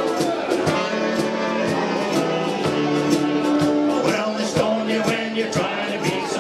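A large ukulele band strumming a steady beat together, with saxophones and brass playing along and voices singing.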